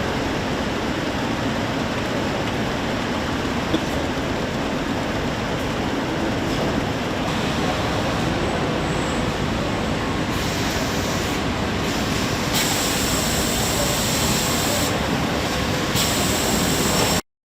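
Steady, dense machinery noise of a car-factory production line, an even rumble and hiss with a small click about four seconds in. The sound cuts off abruptly near the end.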